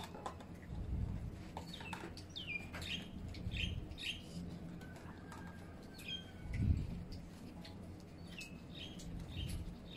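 Small birds chirping: many short, quick downward-sliding chirps repeated throughout. A few low bumps sound under them, the loudest about two-thirds of the way in.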